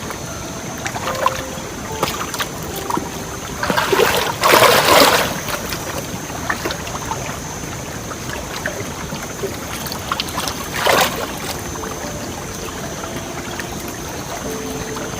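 Water being splashed and stirred, with two louder splashes about four to five seconds in and again near eleven seconds, over a steady background of moving water.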